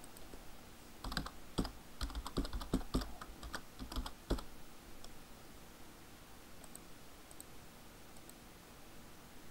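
Typing on a computer keyboard: a quick run of keystrokes lasting about three and a half seconds, then a couple of faint clicks.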